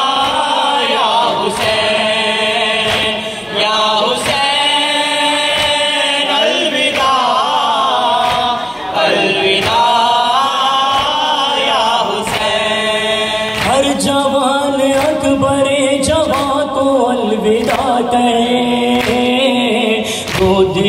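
A group of men chanting a noha, a Shia mourning lament, in chorus through microphones and loudspeakers, on long wavering held notes. Regular slaps of matam, chest-beating by the mourners, run under the chant.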